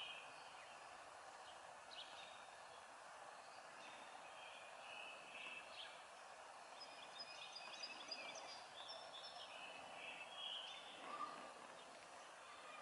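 Faint outdoor ambience: a steady low hiss with scattered short bird chirps and calls, thickest through the middle.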